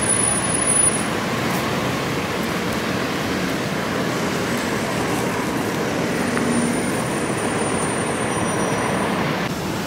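Steady city street traffic noise.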